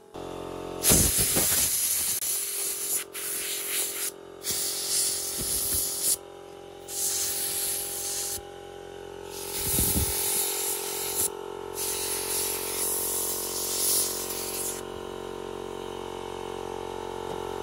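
Compressed air blown into an opened laptop's fans and heat sink to clear out dust, hissing in five bursts of one to three seconds each with short pauses between.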